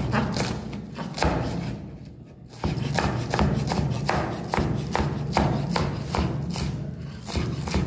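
Chef's knife chopping shredded vegetables on a wooden cutting board: the blade knocks steadily on the board about two to three times a second, with a short pause about two seconds in.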